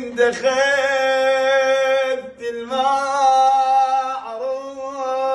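A man singing a slow Iraqi Shia lament (latmiya) in Arabic, holding long notes with wavering turns, with a brief break about two seconds in.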